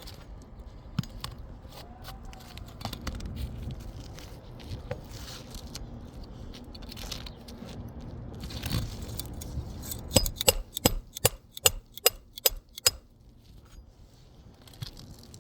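A hammer driving roofing nails into an asphalt shingle: handling noise and small metallic clinks, then a quick run of about ten sharp hammer strikes about ten seconds in.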